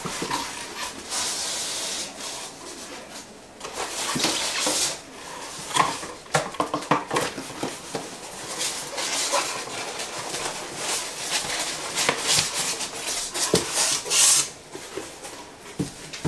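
Cardboard box and packing material rustling and scraping as items are pulled out of it by hand, with scattered light knocks and clicks.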